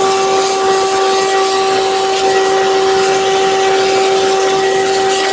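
Shop vacuum running steadily: a constant whine over the rush of air through the hose.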